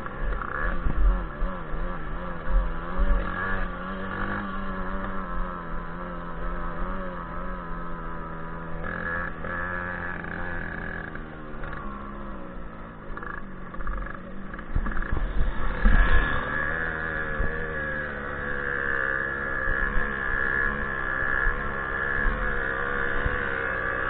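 Small single-cylinder two-stroke moped engine of a Jawa 'Pařez' running under load, its pitch rising and falling with the throttle. About two-thirds of the way through it gets louder and rougher, with a few knocks, then settles into a steadier, higher run.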